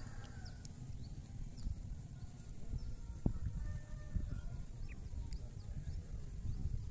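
Low wind rumble on the microphone by open water, with faint short bird chirps and a single sharp click about three seconds in.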